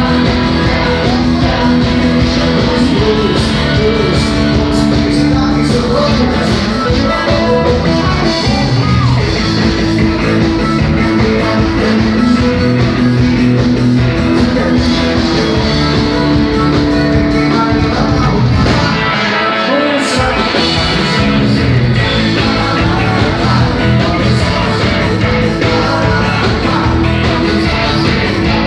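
Live dance band playing with electric guitar, bass, drums, and singing, over a steady beat. About two-thirds of the way through, the bass and drums drop out for about a second, then come back in.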